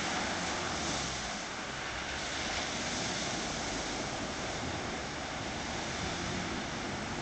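Land Rover 4x4 wading through a muddy water hole, its engine running and water splashing around the wheels, heard as a steady rushing noise.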